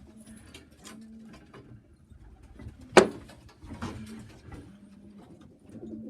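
Pigeons cooing softly in a loft, short low coos every second or so, with scattered light taps and one sharp knock about three seconds in.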